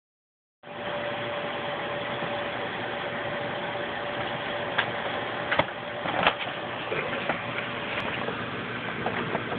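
Paper grocery bag crinkling and rustling in a few short sharp bursts about halfway through as kittens paw and pounce at it, over a steady machine-like hum and hiss with a faint steady tone.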